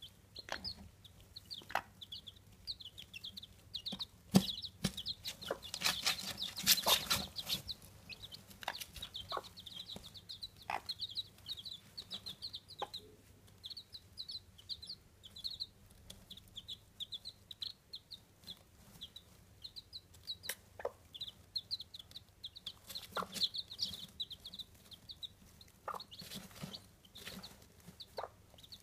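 Chabo bantam chicks peeping constantly in quick, high cheeps, with the broody hen's low clucks under them. About six seconds in there is a brief burst of rustling in the hay.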